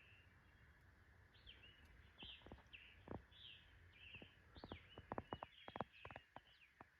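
Faint pre-dawn birdsong in woodland: a bird repeats short, high song phrases over and over. A quick run of sharp taps or clicks comes close by about two-thirds of the way in.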